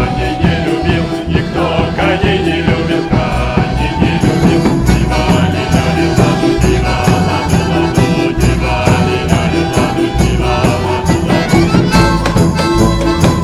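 Live folk ensemble music: accordion, plucked strings, violins, tuba and bass drum playing a tune with a steady beat, with a chorus singing.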